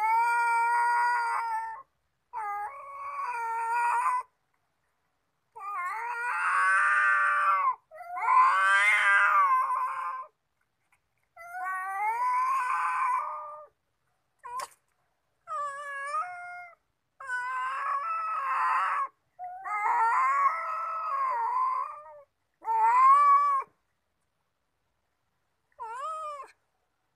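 Two domestic cats yowling at each other in an aggressive standoff: about ten long, wavering, drawn-out calls, each one to two seconds, with short pauses between them.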